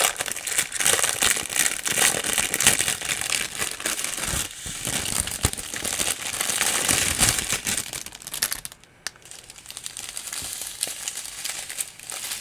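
Clear plastic bags of diamond painting drills crinkling as they are handled, with a brief lull about nine seconds in.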